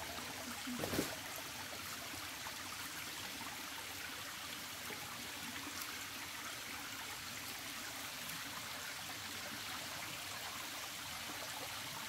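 Steady trickling of a shallow rocky stream, with a short knock about a second in.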